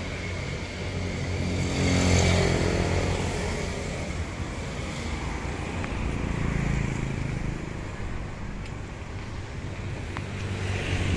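Road traffic passing: a vehicle engine swells to a peak about two seconds in and fades away, and another passes more quietly around six to seven seconds in, over a steady low rumble of traffic.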